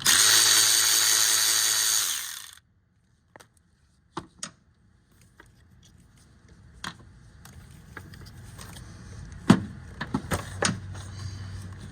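Power tool motor running for about two seconds as it spins out the 10 mm bolt holding an ignition coil, then winding down and stopping. Afterwards a few scattered clicks and knocks of parts being handled.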